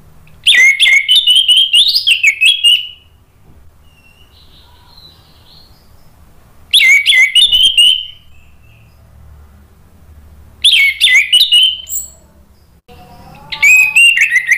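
Orange-headed thrush (anis merah) in full, open song: four loud phrases of rapid, varied whistled notes, each one to two seconds long, with a few seconds' pause between them.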